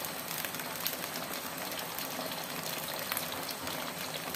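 Thin chili sauce simmering in a steel wok, a steady bubbling hiss scattered with small pops and crackles.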